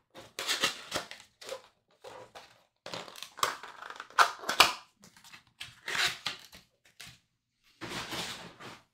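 Plastic wrapping being crinkled and crushed by hand, in irregular bursts with short pauses; the loudest crackles come about halfway through.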